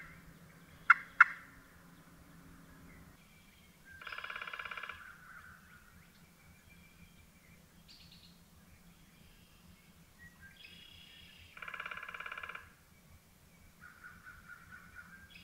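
A wild turkey gobbler gobbling twice, about four seconds in and again about twelve seconds in, each gobble a rapid rattling call about a second long, with a fainter rapid call near the end. A few sharp clicks in the first second are the loudest sounds.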